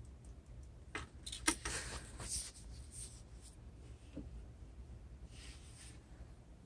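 A few light clicks and short rustles of small objects being handled, most of them bunched about a second in, over a faint steady low hum.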